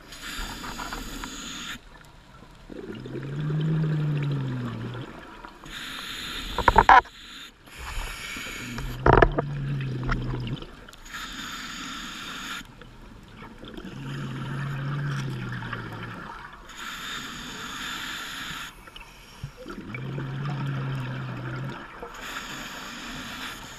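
Scuba diver breathing through a regulator underwater: a hissing inhale followed by a low, buzzing, bubbly exhale, about four slow breath cycles. Two sharp knocks, about seven and nine seconds in, are the loudest sounds.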